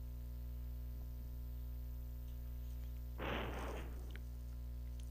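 Steady low electrical hum on the recording, with a short rustle about three seconds in.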